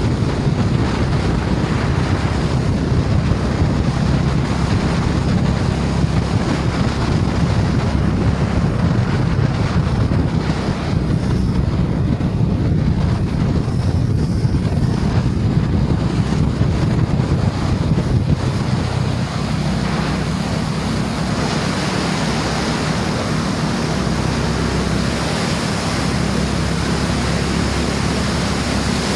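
Wind rushing over the microphone of a moving motorcycle, with the steady low note of a Honda H'ness CB350's single-cylinder engine underneath while cruising. The rush eases slightly about two-thirds of the way through.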